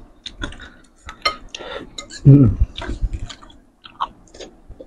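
Eating sounds: metal forks and spoons clicking and scraping against a bowl of noodle soup, with chewing and slurping of noodles. A brief voice sound comes about two and a half seconds in.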